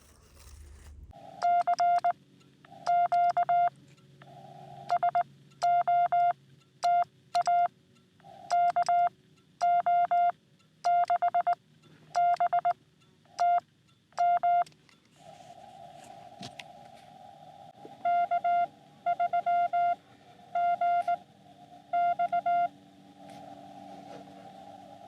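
Morse code (CW) from a Xiegu X6100 ham radio transceiver: a single-pitch beep keyed in runs of dots and dashes, in two stretches of sending. From about the middle on, a narrow band of receiver hiss fills the gaps between the beeps.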